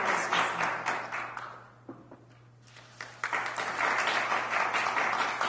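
Small audience clapping in a large room; the applause dies away about a second and a half in and a fresh round starts about three seconds in, as an appointment certificate is handed over.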